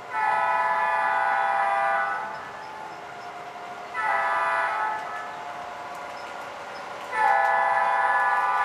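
Model C&O GP9 diesel locomotive's onboard sound system blowing its multi-chime air horn: a long blast, a short one about four seconds in, and another long one starting about seven seconds in.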